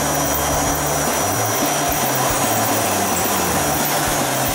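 ASL RT3 ride-on planetary concrete grinder running with its ASL 220V dust vacuum attached: a loud, steady motor drone with a high, constant vacuum whine. The low hum changes pitch about a second in.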